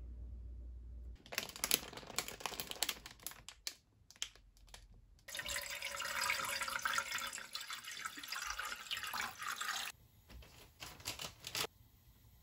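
Water running steadily from a tap for about four and a half seconds, after a stretch of irregular clattering from things being handled, and followed by a few clicks.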